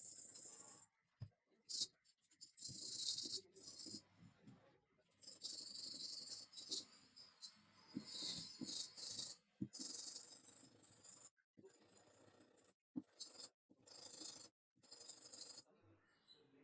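Hand abrasion strokes on a rusty saw, rubbing and scraping in short hissy runs broken by abrupt cuts, with a few light knocks.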